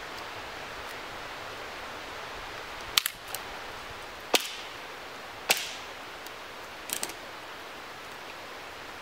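Dry dead branches snapping off a fallen conifer trunk as they are broken by hand: about five sharp cracks, starting about three seconds in and spread over the next four seconds.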